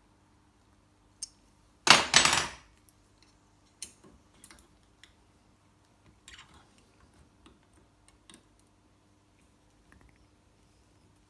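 Metal-on-metal clinking and scraping of a fork being worked against the steel pins of a hand fork bending tool: a sharp click, then one loud rattling scrape about two seconds in lasting under a second, followed by scattered lighter clicks and short scrapes.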